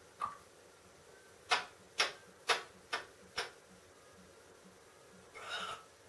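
An African grey parrot clicking: five sharp clicks about half a second apart, after a fainter one just at the start. A short rasp follows near the end.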